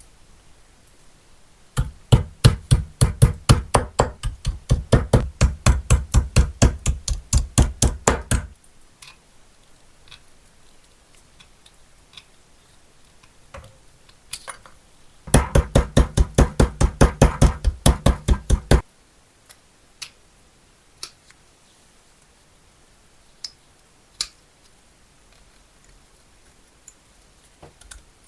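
Rapid, evenly spaced hammer taps on metal, several a second, in two runs: a long one of about seven seconds and a shorter one of about three seconds. Scattered single light clicks follow.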